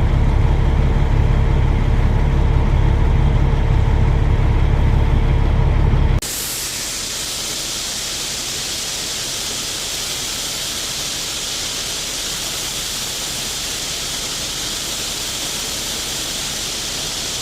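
Low vehicle engine rumble with a steady hum for about six seconds, then an abrupt cut to a steady hiss.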